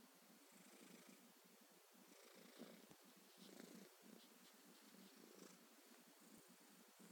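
Elderly cat snoring faintly, a soft rasp with each slow breath.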